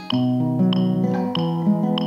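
Instrumental music: a keyboard or piano backing with held chords and a steady beat, with no voice singing.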